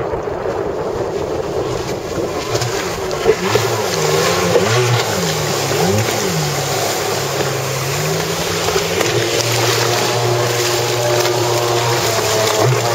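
Jet ski engine revving, its pitch rising and falling several times and then holding steady, over a constant rush of water spray and wind.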